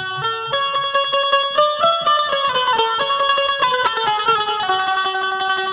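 Instrumental music from a plucked string instrument, its melody stepping downward over rapid repeated plucks, then settling on a held note near the end.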